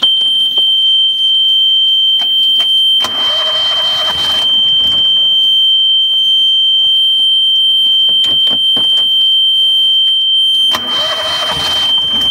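Sailboat inboard engine's panel alarm buzzer sounding one steady high-pitched tone as the ignition key is switched on. The starter cranks the engine twice over it: about three seconds in for a second and a half, and again near the end, with a few clicks of the key between.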